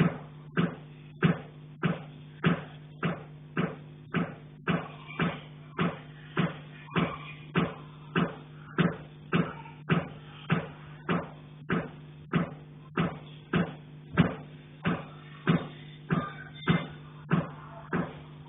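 Knocking on a cast-iron pipe, carried through the building's pipework: even, steady blows about one and a half a second, each ringing briefly.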